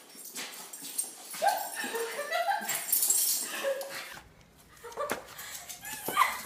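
Dogs whining and whimpering in short high glides, the excited sound of dogs greeting their owner after a long time apart. About four seconds in the whining stops and gives way to a quieter background with a few faint knocks.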